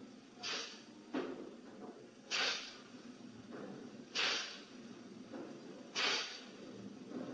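Heavy, rapid breathing: four loud hissing breaths about every two seconds, with softer breaths between them.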